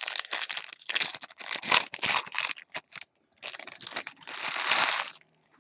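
The foil wrapper of a 2019 Topps Chrome hobby pack being torn open and crinkled by hand: a run of crackling tears for about three seconds, then a longer crinkle that stops shortly before the end.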